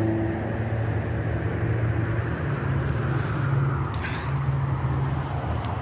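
A motor vehicle's engine running steadily, a low hum with engine noise that shifts slightly in pitch about halfway through.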